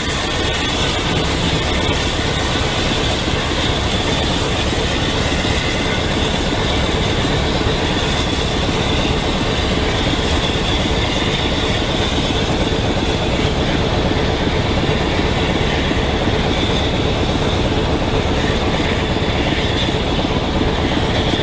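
Heritage train with a steam locomotive and a Class 24 Sulzer diesel working at close range: a loud, unbroken noise, a constant high hiss over a low rumble.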